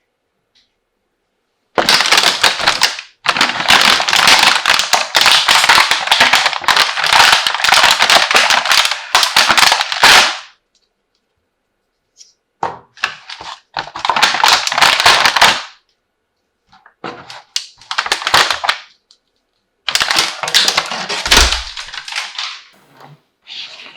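Plastic toy pieces and their packaging being handled: dense, rapid clattering and crinkling in loud bursts. One long burst starts about two seconds in, followed by several shorter ones.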